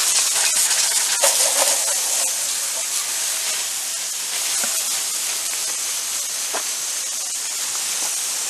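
Water spraying hard from a hose nozzle: a steady, loud hiss that eases slightly after a couple of seconds.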